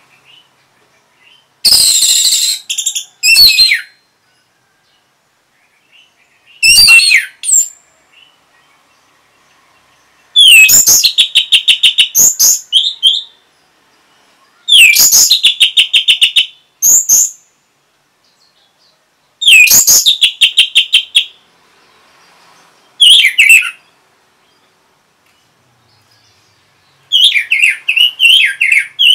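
Orange-headed thrush singing loud phrases every few seconds. Several open with a clear falling whistle and run into a fast, stuttering string of repeated notes, with short silent gaps between phrases.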